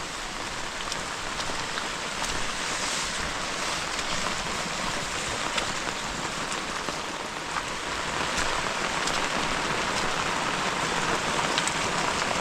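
Heavy rain falling steadily, a dense hiss with scattered sharp drips and drop strikes close by.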